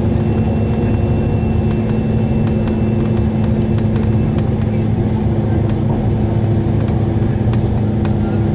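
Bus engine and road noise heard from inside the moving bus: a steady drone with a constant hum, with scattered small rattles and clicks.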